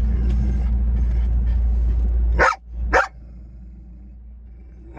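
A dog barking inside a moving car: over the car's steady low rumble come two sharp barks about half a second apart, after which the rumble drops much quieter, and a third bark comes at the very end.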